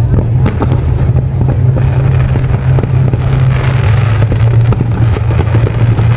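Fireworks display going off: a rapid run of sharp pops and crackles over a steady low rumble, with a denser crackling hiss about halfway through.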